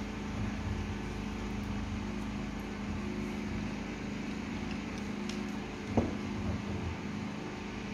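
Steady background machine hum with a low steady tone, and a single sharp click about six seconds in.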